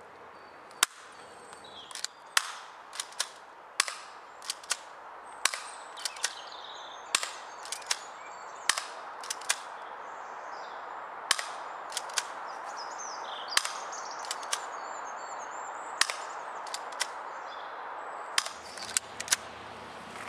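P698 plastic airsoft pistol firing 6 mm BBs shot after shot, each a sharp snap, at an irregular pace with some shots in quick pairs, the slide pulled back to cock it between shots.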